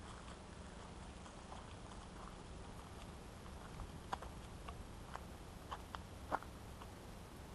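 Faint footsteps shuffling on a dirt forest trail: a handful of short clicks and ticks, bunched from about four seconds in, the last the loudest, over a steady low hum.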